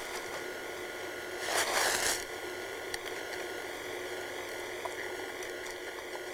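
Steady hiss with a brief rustle about one and a half seconds in and a few faint clicks, as gloved hands handle a wire snare loop among frozen brush.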